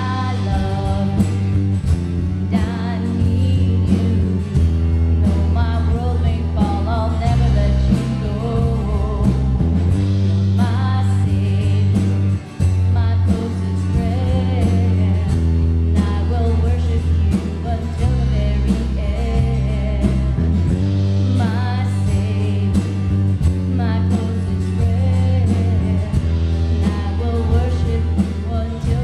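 Electric bass guitar playing long held low notes along with a full band worship-song track that has a singing voice and guitar, with a brief break in the sound about twelve seconds in.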